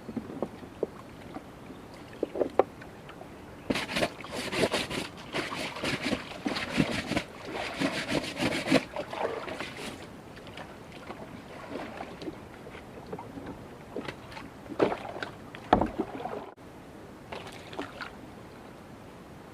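Water splashing and sloshing with scattered knocks and rattles, heaviest for several seconds in the middle, as a prawn trap is handled in a small boat on a river.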